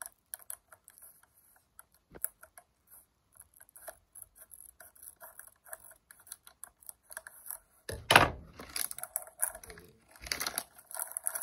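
Scissors cutting along the top of a foil bag, with light snipping and crinkling. About eight seconds in the foil bag is pulled open with a loud crinkle, and it crinkles again near the end as it is spread apart.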